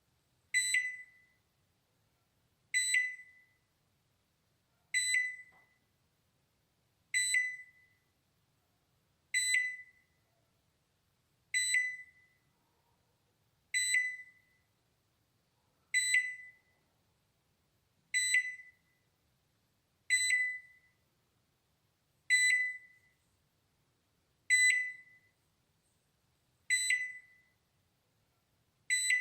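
Balay microwave oven's alarm signalling the end of the cycle: a single high electronic beep repeating about every two seconds, each beep starting sharply and fading quickly.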